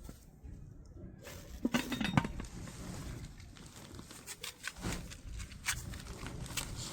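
Clattering and clinking of cookware being handled, with a cluster of louder knocks about two seconds in.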